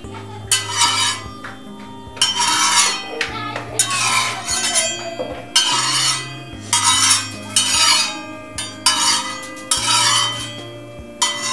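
Steel spatula scraping over an iron tawa as oil is spread across it, in repeated short strokes about once a second.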